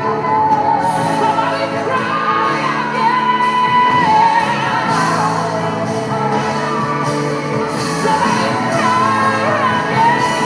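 Live gospel worship music: voices singing held, sustained lines over band accompaniment.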